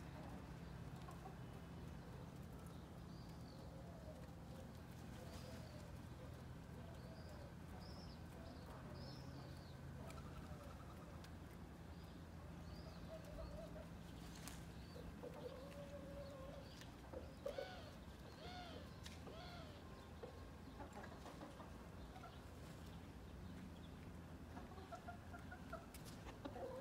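Chickens clucking softly, with short high chirps scattered through and a faint steady low hum underneath; the clucking is busiest around the middle.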